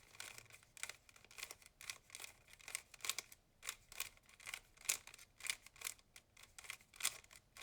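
Plastic Rubik's cube faces being turned by hand in quick succession, a rapid series of clicks and clacks as a corner-placing algorithm is repeated.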